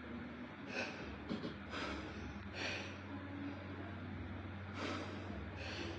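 Short, hissy breaths or snorts from a person, about one a second, over a steady low hum.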